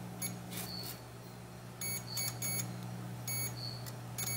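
Fuyi FY9805 digital multimeter's continuity buzzer giving several short beeps as the probes touch the ends of capacitors on a tablet logic board, over a steady low hum. A beep on both ends of a capacitor means it is shorted to ground.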